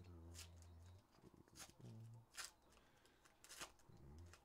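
Foil trading-card pack wrapper crinkling as it is torn open and the cards are pulled out: four sharp crackles about a second apart, over faint low held tones.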